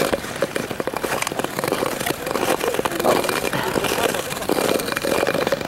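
Ice skate blades clattering over rough outdoor canal ice: a dense, continuous clickety clacking of clicks and scrapes, the sign of bumpy, uneven ice.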